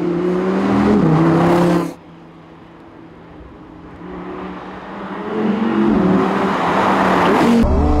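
Audi R8 V10 Spyder's naturally aspirated 5.2-litre V10 running loud under throttle, cutting off abruptly about two seconds in. The engine is faint for a couple of seconds, then swells back to full volume as the car comes closer and pulls hard. Near the end another engine comes in abruptly with rising revs.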